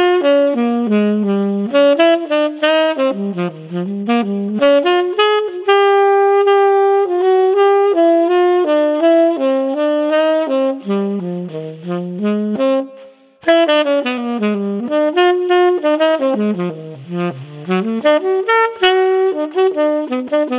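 Tenor saxophone, played through a Mouthpiece Cafe Espresso 7* mouthpiece, playing an unaccompanied jazz line of quick runs of notes, with one long held note about six seconds in and a brief break about two-thirds of the way through.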